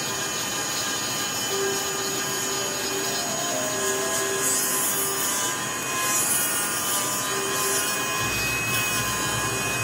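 Dremel rotary tool running at low speed with a sanding bit, sanding the shaft of a cane reed pen: a steady motor whine with the rough noise of the bit abrading the reed.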